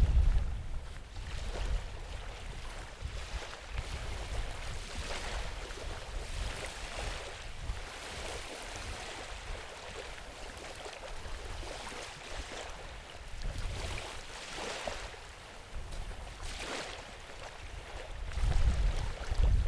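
Wind blowing over the microphone, buffeting it with a low rumble at the start and again near the end, with a steady rushing hiss in between.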